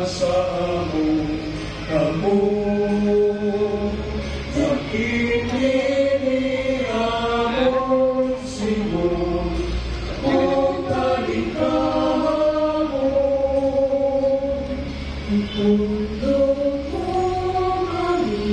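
Voices singing a slow, chant-like hymn together, holding each note for about a second and stepping from note to note.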